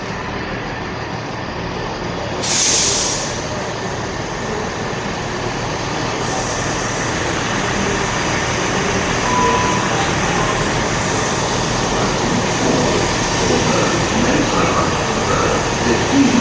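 Diesel multiple-unit trains idling at the station platforms: a steady engine rumble under a broad even noise that slowly grows louder. A short burst of air hiss comes about two and a half seconds in.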